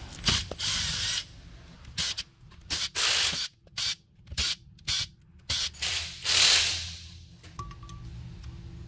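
Aerosol carburetor cleaner sprayed onto a Rochester carburetor in a series of short hissing bursts, with one longer burst about six seconds in, flushing out a carb whose idle circuit is clogged.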